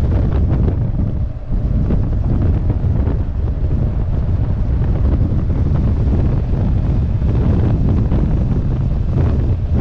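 Wind rushing over the microphone of a camera mounted on a BMW R 1200 GS motorcycle riding at about 30–35 mph, a steady low rumble with a brief dip about a second in.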